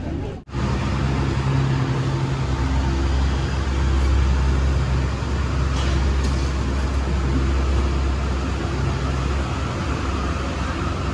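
Airport apron bus engine running, a steady low drone heard from inside the passenger cabin. The sound drops out briefly just after the start.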